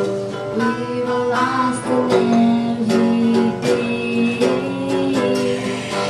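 A song played live: an electric guitar picking and strumming chords, with a woman singing over it.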